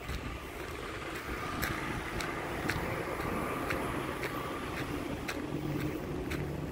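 Wood mill machinery running steadily: a low rumble with a faint whine and sharp clicks about twice a second. About five and a half seconds in, a deeper engine hum comes in and grows louder.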